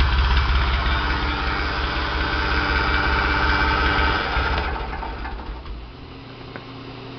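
Ford 335 industrial tractor's freshly rebuilt diesel engine idling on low throttle, with a hydraulic pump that is a little noisy. About four and a half seconds in the engine is shut off and runs down to a stop.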